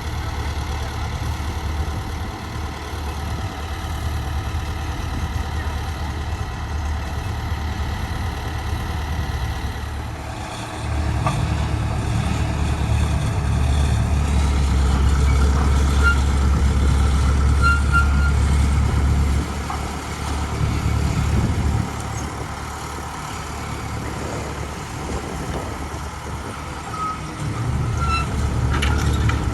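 A vehicle engine running with a steady low rumble, which grows louder for several seconds in the middle before easing off again.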